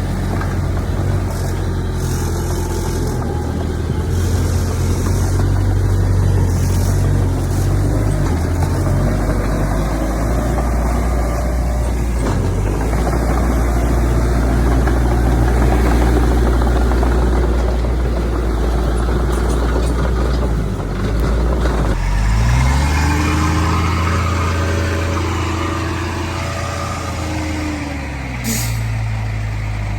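Heavy diesel earthmoving engines running steadily. About two-thirds of the way through, the sound changes abruptly and an engine revs up, then slowly winds back down, with a short hiss near the end.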